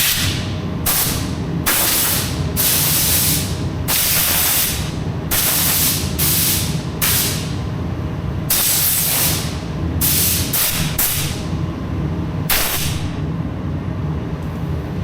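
About a dozen short bursts of pressurised spray hissing, each under a second, at irregular intervals over a steady low hum.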